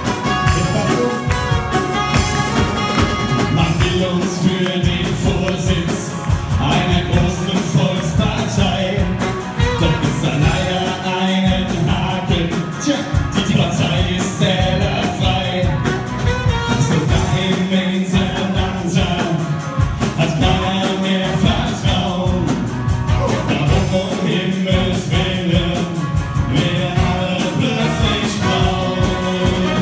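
Two men singing a song into handheld microphones over amplified music with a steady beat.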